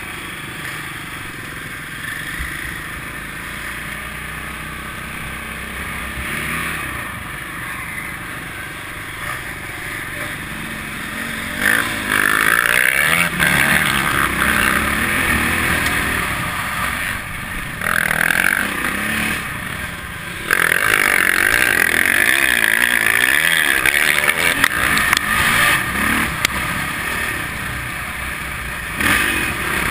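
Dirt bike engine heard from on board while riding a trail: steady and lower for the first ten seconds or so, then louder from about twelve seconds in, revving up and down with the throttle.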